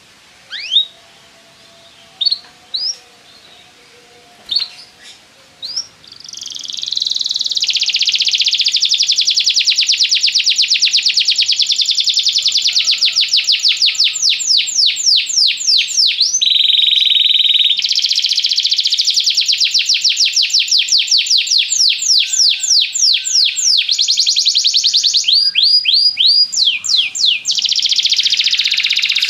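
Domestic canary singing: a few separate chirps, then about six seconds in a long continuous song of fast trills and rolls, broken in places by slower sweeping notes.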